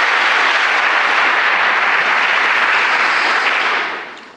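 A large audience applauding, a dense, steady sound of many hands clapping that dies away near the end.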